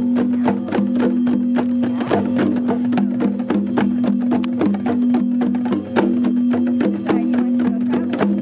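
Frosted quartz crystal singing bowl sustaining a steady low hum while a djembe is played by hand in a fast, even rhythm of about four to five strokes a second.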